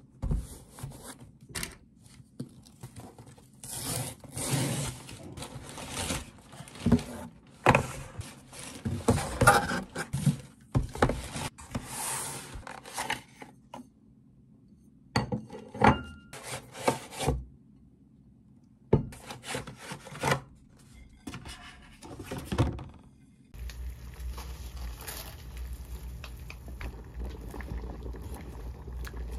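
Cardboard box and paper packaging rubbing and scraping in irregular bursts with short pauses as a parcel is opened and ceramic plates are unwrapped. About 23 seconds in, this gives way to the steady hiss and low hum of a pot of water boiling with spaghetti in it.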